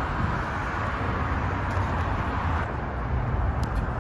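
Steady outdoor background noise: a low rumble with a hiss above it, with no distinct events.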